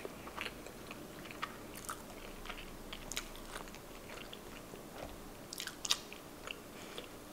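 Close-miked chewing of sushi: soft, wet mouth clicks and smacks, a few a second, with a louder cluster near the end.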